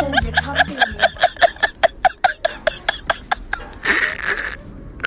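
A woman laughing: a quick run of short, high-pitched giggles that tapers off over about three and a half seconds, followed by a breathy sound.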